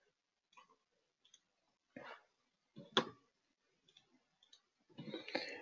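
Mostly quiet, with a few faint clicks at a computer; the sharpest click comes about three seconds in, and a brief noisy sound follows near the end.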